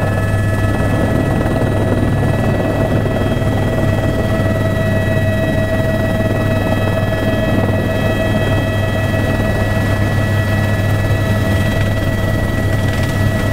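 Helicopter in flight heard from inside the cabin: the engine and rotor running at an even, loud level, a steady low hum with several steady high whining tones over it.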